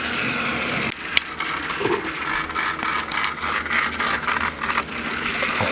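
Battery-powered TrackMaster toy engine's small motor whirring as it runs along plastic track, with rapid rattling clicks and a sharp click about a second in.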